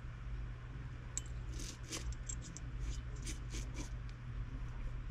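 Small metal parts of a Shimano Stella spinning reel, such as washers and bearings, clicking and clinking lightly as they are handled in and around a small cup during parts cleaning, with a low steady hum underneath.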